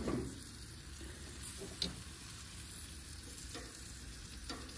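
Bacon-wrapped duck breasts sizzling on the hot grates of a gas grill, a steady frying hiss. A knock at the start and a few short clicks as metal tongs touch the grate to turn the pieces.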